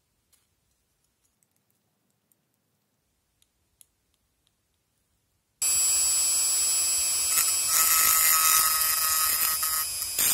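Handheld rotary tool spinning a grinding stone against the rusty aluminium cup of a speedometer's cup-and-shaft assembly to clean it: a loud, high-pitched, ugly whining screech that starts suddenly about halfway through. Before it there are only a few faint clicks.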